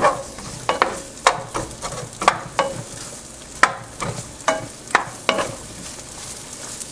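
Chopped onion sizzling in oil in a non-stick frying pan, with a spatula scraping and knocking against the pan in irregular strokes as it is stirred.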